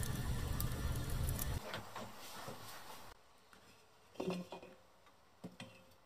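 Pot of berry marmalade boiling with a dense bubbling crackle, which cuts off about a second and a half in. Later a few light knocks of a stainless steel colander being lifted off a wooden wall.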